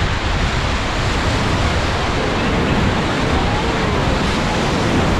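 Whitewater of a Ganges river rapid rushing loudly and steadily, with wind buffeting the microphone. Faint shouting voices come through about three to four seconds in.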